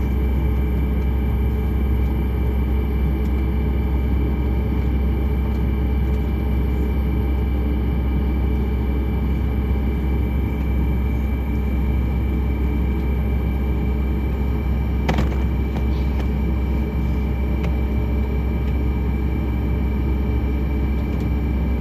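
Steady cabin noise of a Boeing 737 MAX 9 with its CFM LEAP-1B engines at idle, heard from inside the cabin: a deep, even rumble with a steady high whine over it. A brief click about 15 seconds in.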